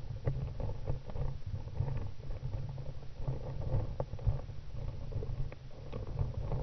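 Underwater ambience heard through a submerged camera: a muffled, steady low rumble with scattered faint clicks.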